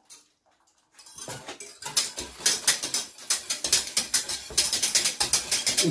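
Wire balloon whisk beating cream into a sauce in a stainless steel saucepan: a quick, steady run of clicks and scrapes of the wires against the pot, starting about a second in.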